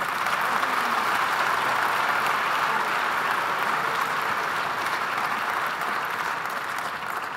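Audience applauding steadily, dying down a little near the end.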